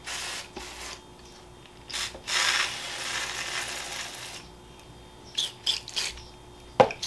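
Hand spray bottle misting water into a plastic enclosure: a short hiss of spray at the start, a longer hiss of about two seconds in the middle, and a few small clicks from the sprayer near the end.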